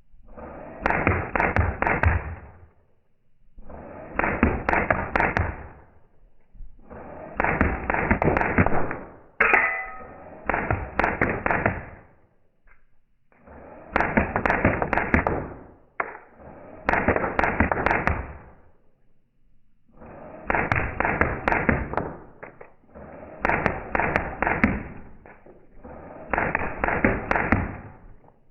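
Airsoft Scorpion Evo electric gun firing rapid bursts, about nine in all, each about two seconds long and about a second apart.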